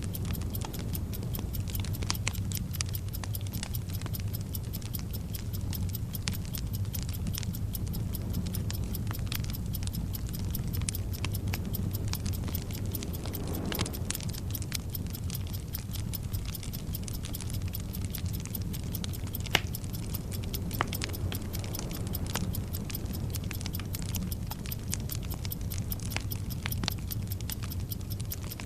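Bomb-timer sound effect: fast, even clock ticking layered over a burning fuse's steady hiss and irregular crackle, with a couple of sharper pops.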